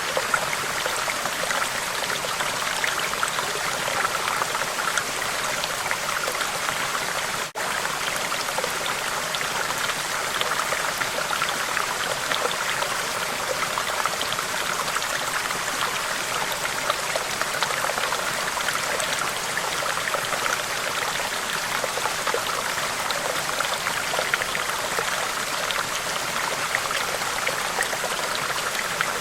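Steady running water, an even splashing flow like a small stream. There is a split-second dropout about seven and a half seconds in.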